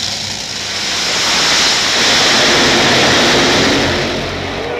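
Two nitromethane-burning Top Fuel dragsters launching and running down the strip. A harsh roar swells over about two seconds, stays at its loudest for a second or so, then fades as the cars pull away.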